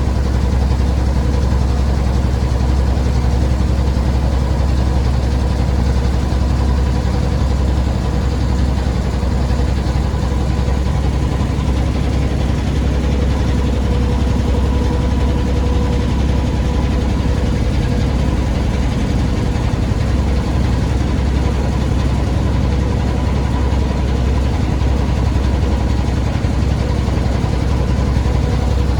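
Motor engine running at a steady idle, a continuous low drone with a faint steady higher tone above it.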